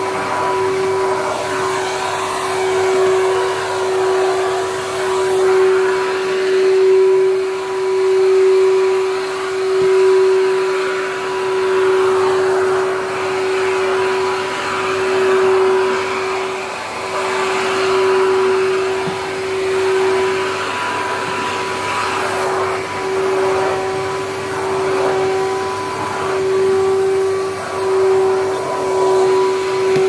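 Numatic NVQD570 tub vacuum cleaner running, a steady motor hum and suction noise, swelling and easing about every two seconds as the floor tool is pushed back and forth over rug and wooden floor.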